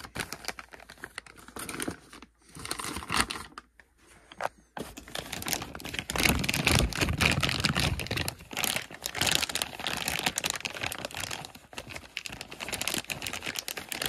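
Clear plastic bag crinkling as it is handled and worked open around a small remote encoder unit, with dense crackling that thins out briefly a few seconds in. A low rumble of handling noise comes in about halfway through.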